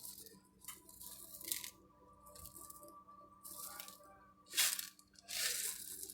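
Bacon bits shaken from their container onto sliced cucumbers, in several short, irregular shakes.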